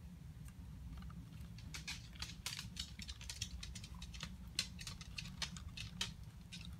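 Fingers rummaging through dry, fibrous substrate in a plastic tub: a scatter of small, irregular clicks and crackles, with nails now and then tapping the plastic.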